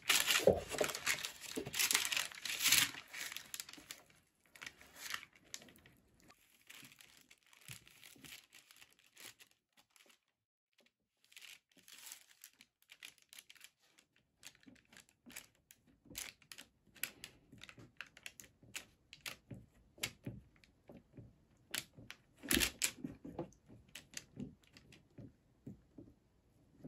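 Baking paper crinkling and rustling in irregular bursts as a silicone spatula scrapes and presses hot peanut brittle thin on it, with a near-silent pause about ten seconds in and a louder flurry near the end.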